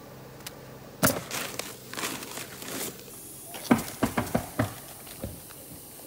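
A chalk line snapped against the roof about a second in, then asphalt hip-cap shingles rustling and slapping together as they are handled and laid. A quick run of sharp clacks comes near the middle.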